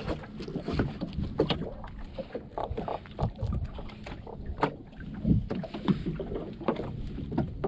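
Gill net being hauled by hand over the gunwale of a small fishing boat: irregular knocks, scrapes and rustles of the wet net against the hull, over a steady low rumble.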